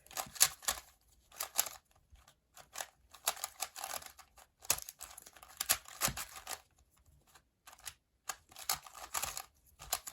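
Plastic twisty-puzzle cube being turned by hand during a solve: bursts of quick clicking and clacking as the layers are turned, with short pauses between them.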